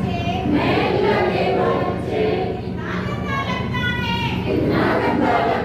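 A group of people singing together, several voices at once, with no break.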